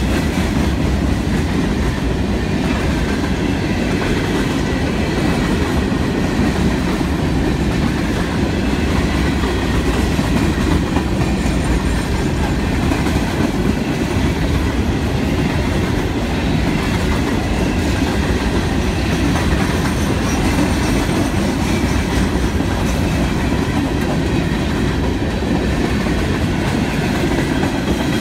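Empty steel coal hopper cars of a long freight train rolling past close by: a steady, loud rumble of wheels on rail.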